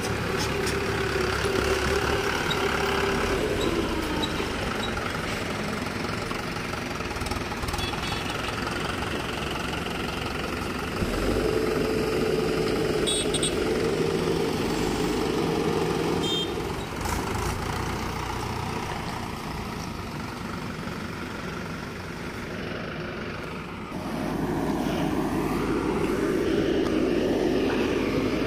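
Diesel engines of a Mahindra 475 DI tractor and an Escorts Digmax backhoe loader running. The engine note grows louder about eleven seconds in, drops back, and rises again near the end as the machines work under load.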